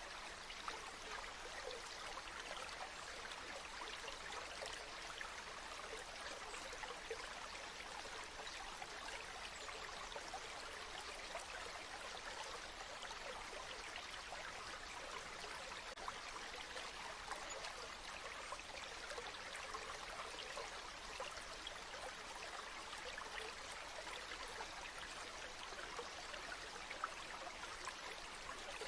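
Steady, even rush of flowing water, like a stream, with fine crackling detail and no change throughout.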